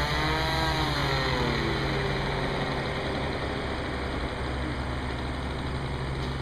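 Engine of a radio-controlled model airplane, an OS .55, idling steadily on the ground at an even pitch.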